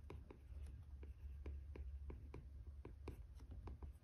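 Second-generation Apple Pencil's plastic tip tapping and scratching on an iPad mini's glass screen during handwriting: faint, irregular ticks, several a second, over a low steady hum.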